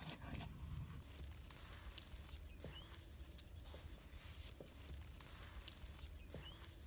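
Faint scraping and crumbling of dry earth as a bare hand digs into a cricket burrow, with scattered small clicks.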